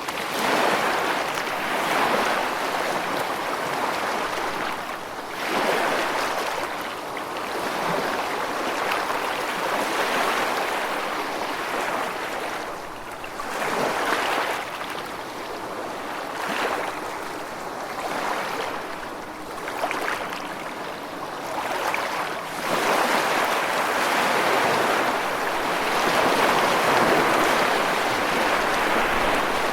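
Gentle surf: small waves washing onto a sandy beach, swelling and falling back every few seconds in a steady hiss.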